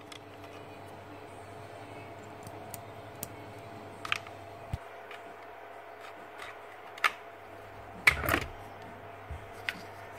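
Plastic and metal parts of a dismantled Bosch GSH 11 E demolition hammer clicking and knocking as they are handled and lifted out, a few light clicks spread out, the loudest a clattering knock about eight seconds in, over a steady faint hum.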